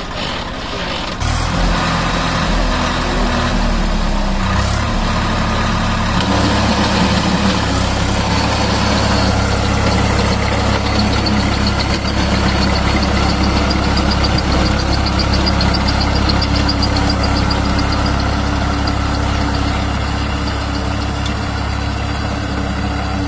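Swaraj 744 FE tractor's three-cylinder diesel engine revved up sharply about a second in, its pitch shifting for a few seconds as it strains, then running steadily under load as the tractor drags its rotavator out of the mud.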